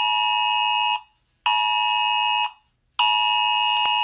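Electronic emergency-alert tone sounding in long, steady, buzzer-like blasts: one ends about a second in, a shorter one follows, and a third begins near the end.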